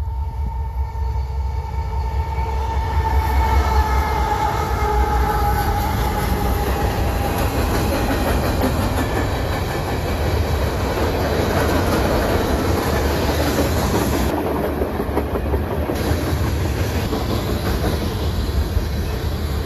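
Freight train passing close by: a steady, loud rumble of rolling wheels and rail cars. A faint ringing tone slowly falls in pitch over the first several seconds and fades out.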